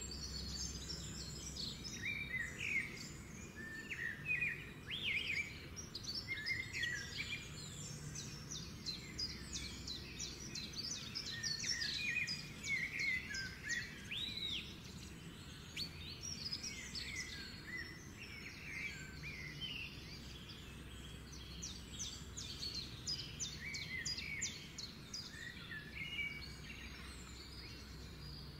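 Birds chirping and singing: many short, quick chirps and trills throughout, over a faint low steady hum.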